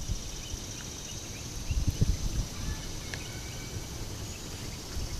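Steady, finely pulsing insect chirring, with low rumbles on the microphone about two seconds in.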